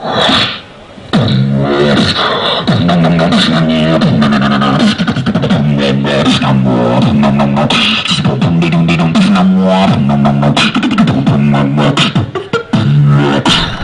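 Beatboxing: rhythmic mouth percussion with deep pitched hums that glide up and down, laced with sharp clicks, after a brief drop just under a second in.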